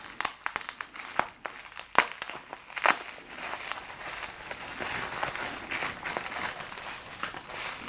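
Plastic parts packaging crinkling and rustling as it is handled. There are several sharp clicks in the first three seconds, then steadier rustling.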